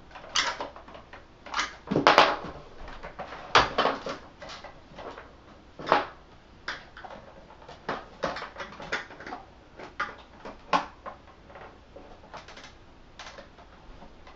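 Irregular clicks, taps and knocks of hard plastic from handling and prying at the plastic housing of a Westinghouse Unplugged cordless vacuum's base unit, the loudest about two seconds and three and a half seconds in.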